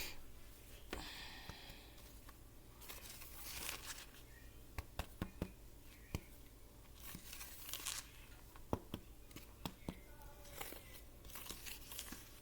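Microwave-crisped cornstarch crunching and crumbling as it is handled. There are scattered sharp clicks and several short bursts of dry rustling.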